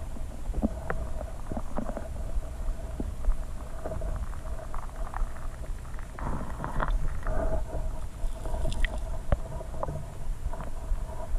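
Flowing stream water heard from a camera submerged on the streambed: a steady low rumble with many scattered small clicks and ticks.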